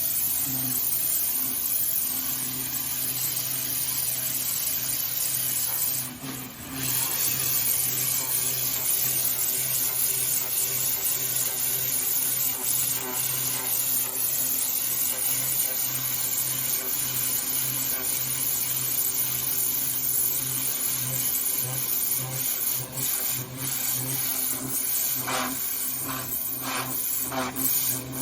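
Pressure washer running: the hiss of the high-pressure water spray over a steady low machine hum, with a brief drop about six seconds in.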